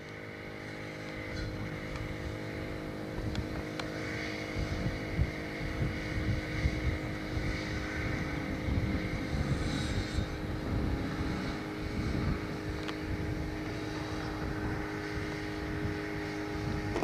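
Outdoor construction-site ambience: wind rumbling on the camcorder microphone over a steady mechanical hum that holds a few fixed tones.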